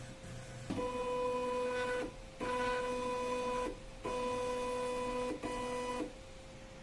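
Stepper motors of a bio 3D printer built on an FDM printer frame, moving the print head or bed with a steady whine. The whine comes in four runs of about one to one and a half seconds each, with brief pauses between them, over a faint constant hum.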